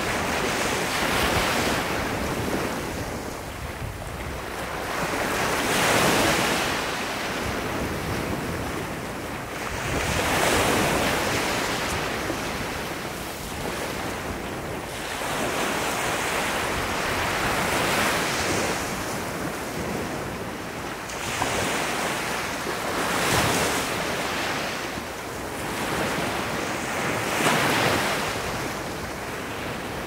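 Small waves breaking gently on a sandy shore and washing up the beach, the sound of the surf swelling and falling back every four to five seconds.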